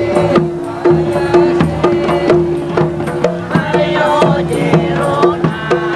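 Hadroh music: rebana frame drums beating a quick, regular rhythm under a steady held note, with voices singing a melody about halfway through.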